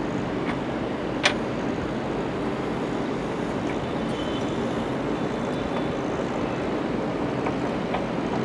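A steady mechanical drone, with one sharp click about a second in.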